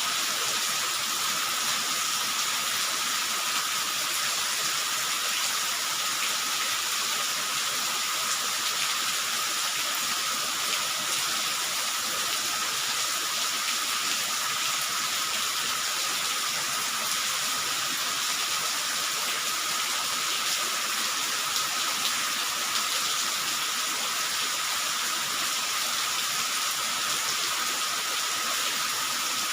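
Steady heavy rain, an even unbroken hiss, with a faint steady tone running underneath.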